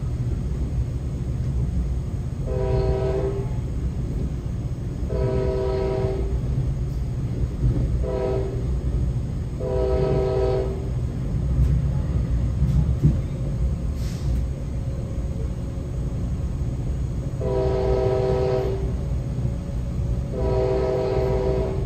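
The Nathan AirChime K5LA five-chime horn on PL42AC locomotive #4027, recently unrestricted, sounds the grade-crossing signal: long, long, short, long. Later it gives two more long blasts that begin the next crossing sequence. It is heard from inside a coach behind the locomotive, over the steady low rumble of the train running on the rails.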